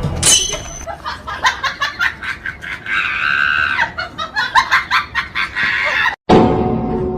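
Comic sound effect of rapid cackling, clucking calls, with one longer drawn-out squawk about three seconds in. It cuts off suddenly near the end and a short musical tone follows.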